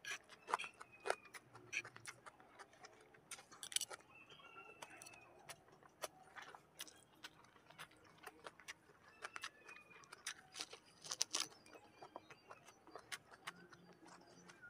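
Close-miked chewing and lip smacking: irregular wet clicks and smacks of a mouth eating food, picked up on a clip-on microphone.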